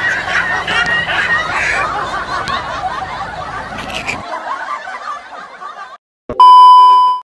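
Two young women laughing and giggling, the laughter trailing off over about six seconds. Near the end a loud, steady high beep cuts in and stops abruptly.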